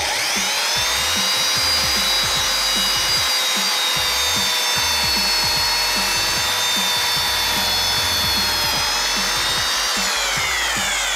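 Electric hand drill starting suddenly with a quickly rising whine, running at a steady pitch for about ten seconds while drilling a hole in a sheet-metal panel through a cardboard spacer, then winding down near the end as the trigger is released.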